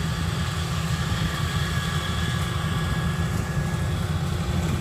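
Kubota DC93 rice combine harvester's diesel engine running steadily, mostly low in pitch, with a faint steady high whine over it.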